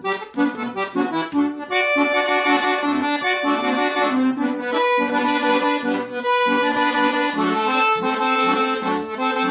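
Accordion (gaita) playing an instrumental interlude in a gaúcho folk song: a lively melody over sustained chords. It starts light and broken, then fills out and grows louder after about a second and a half.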